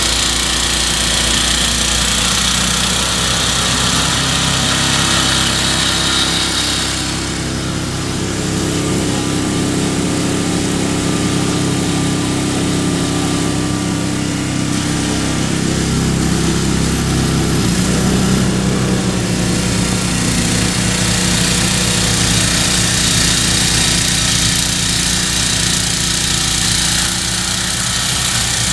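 MTD snowblower with a Tecumseh engine running steadily under load while its auger and chute throw heavy wet snow. Its sound shifts around seven seconds in and again near eighteen seconds as the machine moves.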